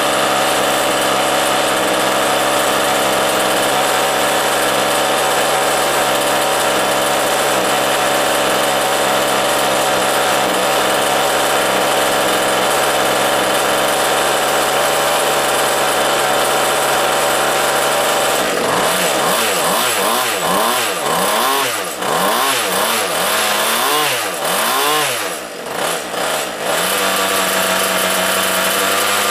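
Freshly rebuilt 30.5 cc big-bore two-stroke gas engine of a large-scale RC truck running steadily, then revved up and down several times in quick succession past the middle before settling back to a steady run.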